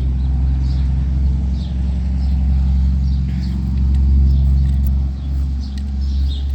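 A steady, loud low rumble with a faint hum running through it, with small birds chirping faintly now and then.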